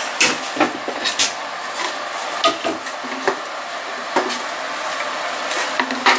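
Scattered knocks and clacks of wood pieces and tools being handled and set in place, about a dozen sharp hits, over a steady background noise of shop equipment.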